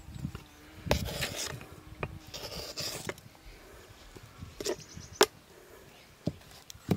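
Food and utensils being handled: rustling and scraping twice in the first three seconds, with a few separate sharp knocks or clicks.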